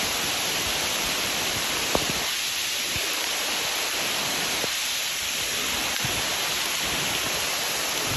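Heavy rain pouring down on a leafy forest canopy: a steady hiss, with a few sharp ticks of close drops or steps, the loudest about two seconds in.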